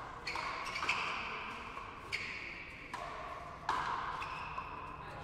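Frontenis rally: the rubber ball struck by rackets and slapping off the frontón wall, about five or six sharp hits roughly a second apart, each ringing briefly in the hall.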